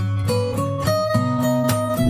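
Background music: a tune of plucked notes over a steady bass line.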